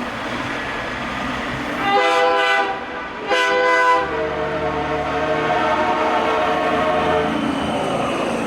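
Big truck air horns sounding with a train-horn-like chord: two loud blasts about two and three seconds in, then a quieter horn held for about three more seconds, over the rumble of slow traffic.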